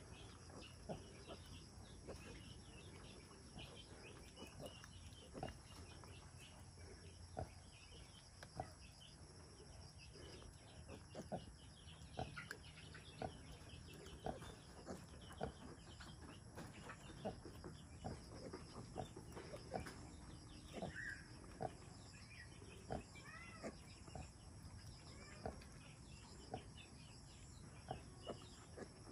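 A nursing sow's soft, short grunts, repeated about once a second while her newborn piglets suckle, with a few brief higher squeaks near the middle.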